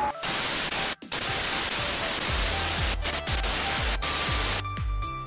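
Outro music effect: loud static hiss that cuts out briefly a few times, joined about two seconds in by a deep, falling bass beat pulsing about twice a second.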